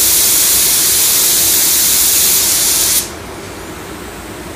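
Iwata WS-400 paint spray gun fired at full trigger with its fan fully open: a loud, steady hiss of atomising air that cuts off abruptly about three seconds in as the trigger is released. A much quieter steady hiss of background air noise continues after it.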